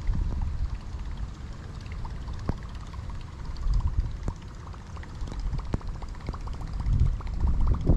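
Small waves lapping and splashing against the rocks at the pond's edge, in scattered little plops, with wind rumbling on the microphone.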